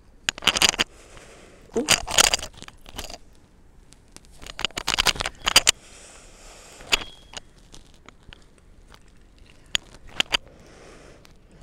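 Close-miked eating of ramen noodles: slurping and wet, crackly chewing, with a metal fork clicking against the plate, in four bursts separated by softer airy slurps.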